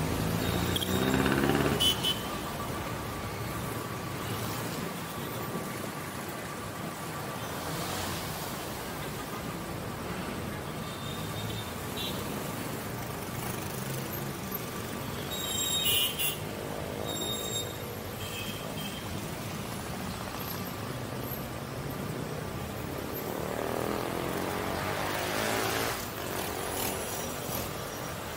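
Road traffic at a busy roundabout: vehicle engines running and passing. Engine notes rise and fall near the start and again near the end, and a few short high-pitched sounds come around the middle.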